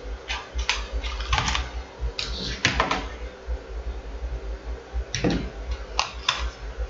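Scattered light clicks and knocks of small parts being handled, as a laptop RAM module is swapped for another, with a cluster of clicks about three seconds in. A steady low hum runs underneath.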